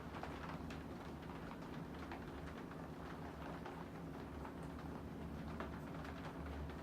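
Encon Princess ceiling fan running, its motor giving a steady low hum, with light irregular clicking over it.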